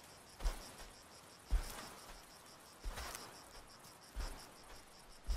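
A desert elephant's footsteps on dry ground: a soft thud with a brief crunch, about one step a second, five in all. Under them runs a steady, high, pulsing insect trill.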